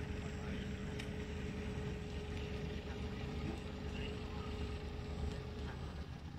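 A steady low engine rumble with a constant hum over it; the hum drops out near the end.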